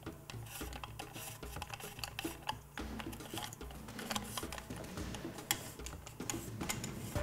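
Small irregular clicks and ticks of a wrench working in the slotted forend nut of a Remington 870 pump shotgun as the nut is unscrewed.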